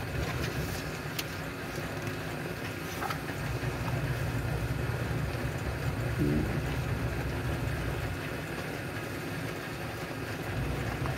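A steady low hum runs throughout, with a few faint paper rustles as book pages are turned, the first right at the start.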